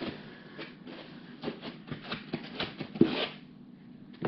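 Hands handling parts in a foam-lined cardboard shipping box: a run of light taps and rustles, with one louder knock about three seconds in followed by a brief scuff.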